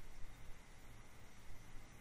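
Faint steady microphone hiss and room tone with a low hum, broken by a few soft ticks.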